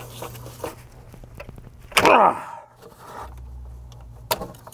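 Light tool and plastic clicks, then about two seconds in a short squeak falling steeply in pitch as the BMW N54's charge pipe is pulled free of its hose connection after its clamp is loosened.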